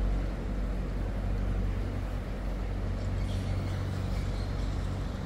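Steady low engine drone, its deepest rumble easing a little near the end.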